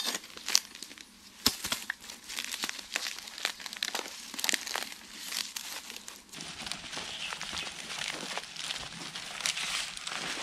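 A hoe scraping through ash and dry bamboo leaves in irregular strokes. After about six seconds, dry leaves crackle and rustle as they are handled.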